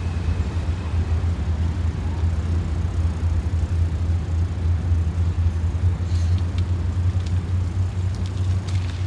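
Steady low rumble of wind buffeting a microphone moving at cycling speed on a bicycle, with a few faint ticks in the last few seconds.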